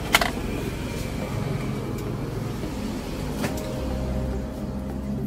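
A battery-powered toy car-robot's small electric motor and plastic gears run with a steady buzz. There is a sharp click just after the start and another about three and a half seconds in.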